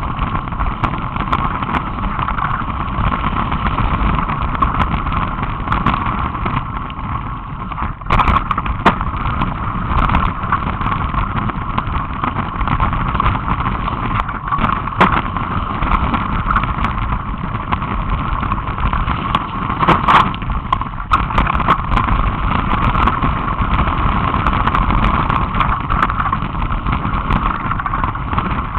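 Mountain bike riding along a gravel trail: a steady rushing, rumbling noise of riding at speed, broken by frequent knocks and rattles as the bike goes over bumps.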